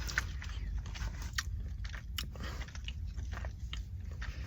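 A person chewing the last of a mouthful, with scattered small wet mouth clicks and lip smacks, over a low steady background hum.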